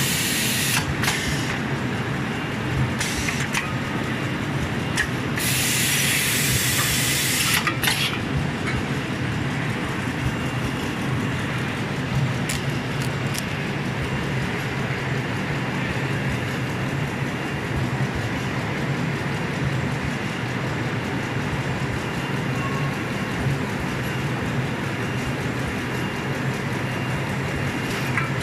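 Pocket tissue packing machine running steadily with a dense mechanical clatter over a low hum, and several bursts of hissing in the first eight seconds.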